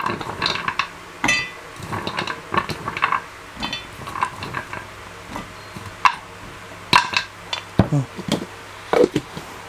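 Hard pieces of dried whole turmeric root dropped by hand into a stainless steel grinder jar, clattering against the steel in irregular knocks, some with a short metallic ring. The hand also picks pieces out of a ceramic bowl, and the knocks grow louder in the second half.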